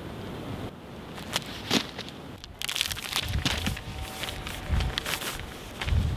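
Footsteps and shuffling on dry leaves and grass, with irregular crackling and rustling and a few low thumps near the end.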